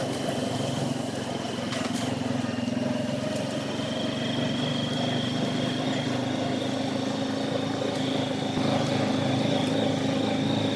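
ATV engine running steadily under way, with a high thin whine that climbs slowly; it gets somewhat louder near the end.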